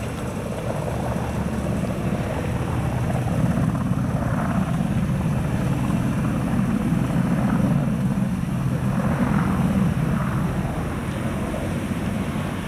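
AH-64 Apache attack helicopter flying past, its rotors and twin turboshaft engines making a steady low drone that swells slightly midway and eases a little near the end.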